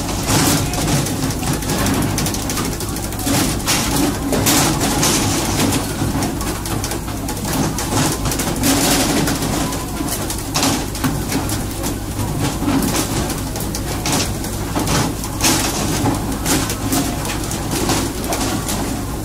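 Fishing boat's engine running with a steady low drone under a constant hiss of rushing water and spray. Irregular sharp knocks and slaps come every second or two as the fish are hauled aboard onto the deck.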